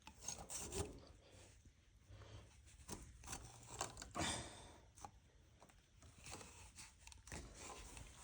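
Faint, scattered clicks and scrapes of a filter wrench being worked onto the oil filter of a Honda GX630 engine.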